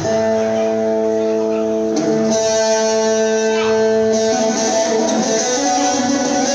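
A live band playing, led by guitars: a chord is held steady for about four seconds, then the parts start moving again.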